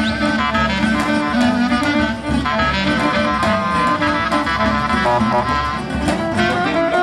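Live Greek traditional folk dance music from a small band: a fiddle-like melody over plucked strings, with a steady drum beat.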